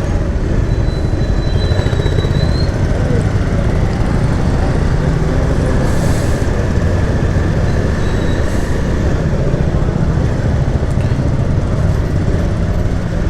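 Motorbike engine running steadily on the move, with a dense, constant rumble of road and wind noise.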